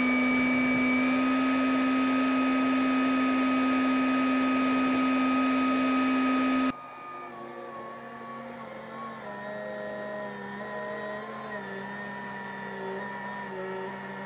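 Forklift engine running close up with a loud, steady whine, cut off abruptly about seven seconds in; after that the forklift is heard farther off and quieter, its engine pitch wavering as it drives the crate toward the door.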